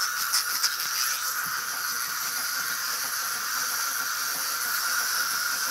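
Several Galt wind-up toy walking mechanisms running together as their clockwork springs unwind, a steady whirr, with a few light clicks near the start.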